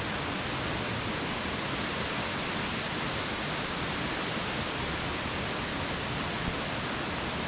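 Steady rushing of a tall single-drop waterfall crashing into its pool, an even wash of water noise without a break.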